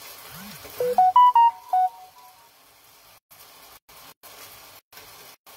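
A short electronic chime of about six notes, stepping up and then down, like a phone notification, over the faint sizzle of salmon frying in a covered grill pan. In the second half the sound cuts out completely several times, the dropouts of a shaky live-stream connection.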